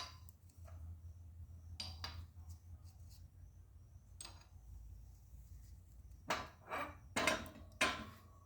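Scattered metallic clanks and knocks as a new wheel hub is pressed into a steering knuckle. A cluster of several louder clanks comes about six to eight seconds in, and a low hum runs underneath.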